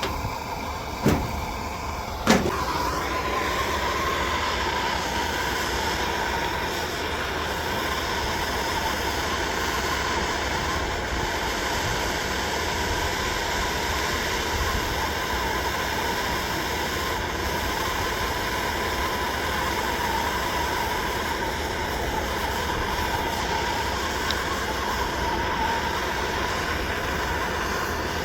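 A handheld gas torch clicks twice and lights on the second click. It then burns with a steady hiss, heating the soldered copper fitting to melt the solder.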